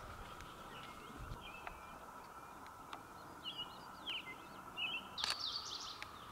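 Small birds giving short chirps and twittering calls, more of them in the second half, over a steady faint hiss, with a few light clicks.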